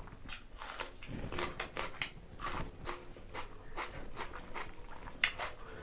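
Close-up eating sounds: a raw onion bitten and crunched, then chewing, heard as a run of short, irregular crunches and mouth clicks, a few a second.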